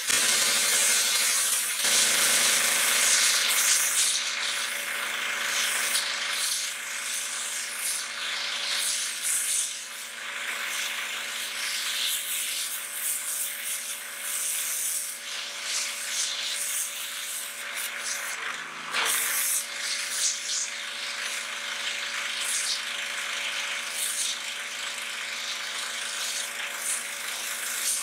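Pressure washer jet hissing and spattering against a pumpkin's rind, a steady, fluctuating spray noise with the washer's motor humming underneath.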